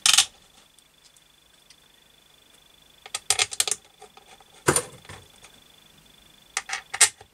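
Small steel bolts clinking as they are handled in the fingers and set into the bolt holes of a motorcycle engine's side cover: several short clusters of light metallic clicks with pauses between.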